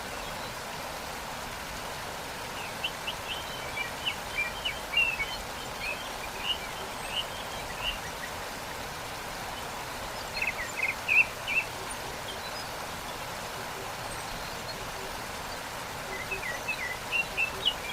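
Steady rushing of a waterfall, with small birds chirping in quick runs of short notes: a long bout a few seconds in, a brief one about ten seconds in, and another near the end.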